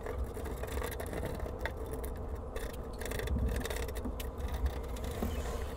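A steady low mechanical hum, with faint scratching and small taps of a felt-tip marker being drawn along the wires of a metal cooling rack around a cardboard template.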